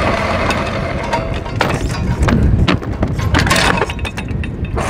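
Anchor chain paying out through the bow windlass as the anchor is dropped, a run of irregular metallic clanks and rattles.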